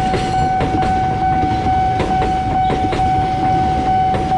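Gaya Baru Malam Selatan long-distance passenger train running past on the level crossing, a low rumble with the wheels clacking over the rail joints every half second or so. A steady electronic tone from the crossing alarm sounds throughout.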